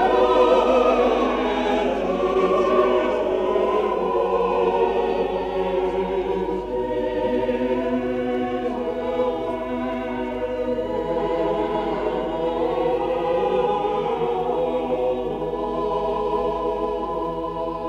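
Classical choral music: voices holding long, slowly changing chords, with no clear beat.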